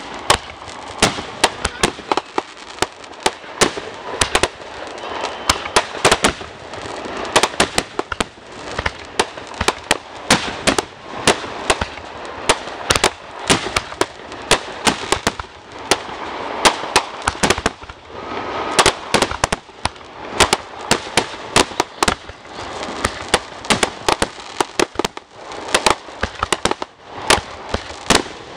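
Aerial fireworks bursting in a continuous barrage: sharp bangs and crackling, several reports a second.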